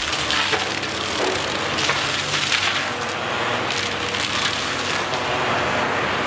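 Excavator-mounted AFE RDM52EX disc mulcher shredding a small pine tree and brush: a dense, continuous noise of splintering, crushing wood, with a faint steady whine underneath.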